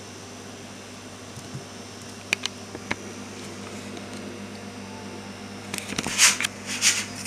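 Steady low electrical hum with a few sharp clicks about two to three seconds in, then a cluster of rustling handling noises near the end as the camera is moved.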